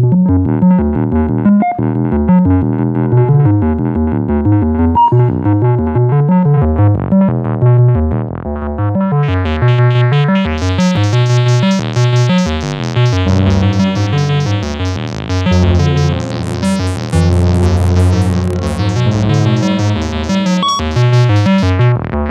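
Moog Mavis and Werkstatt-01 analog synthesizers play a quick, repeating sequenced pattern of notes over a low bass. About nine seconds in the tone turns sharply brighter and buzzier, and it darkens again near the end.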